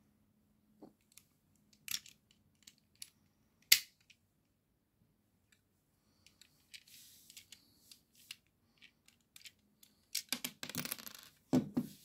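LEGO plastic bricks clicking and clattering as a brick-built puzzle box is handled and its parts are pulled out and set down on a wooden table. Scattered sharp clicks, the loudest nearly four seconds in, then soft rustling, and a quick run of clatter ending in a thump near the end.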